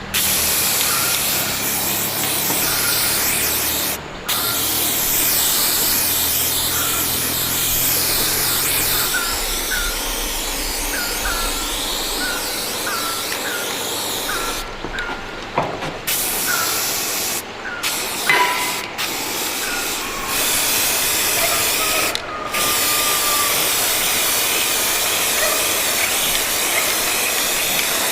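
Electric arc welding on an iron frame: the arc gives a steady hiss, broken by several short pauses where the arc stops and restarts.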